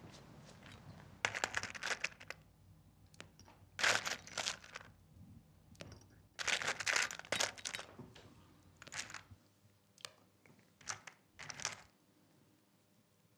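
Sugar cubes crunching and rattling in a bowl as metal sugar tongs dig through them, in about six short bursts.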